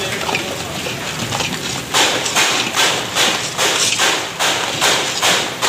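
A metal spoon beating a runny egg mixture in a pan, wet sloshing with the spoon knocking and scraping on the pan. From about two seconds in the strokes become fast and regular, about two or three a second.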